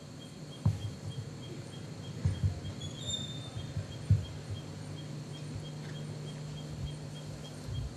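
Outdoor ambience with a steady low electrical-sounding hum and a faint, evenly spaced high ticking, broken by a few dull knocks near the start and about four seconds in.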